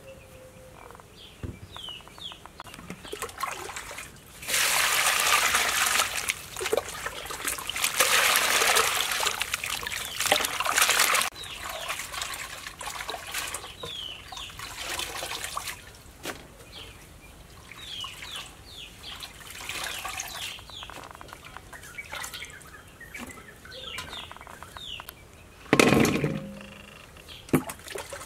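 Water pouring and splashing in a stainless-steel basin as mushrooms are washed by hand. It is loudest from about four to eleven seconds in and again briefly near the end, with softer swishing of hands in the water between. Small birds chirp now and then.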